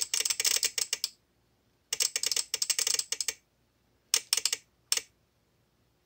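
Relay in a VXT-24 boiler water-feed controller chattering in four bursts of rapid, erratic clicks, the longest about a second and a half. This is the sign of water shorting the manual feed switch intermittently, so the relay keeps firing the feed valve and bypassing the anti-flooding program, enough to flood the boiler.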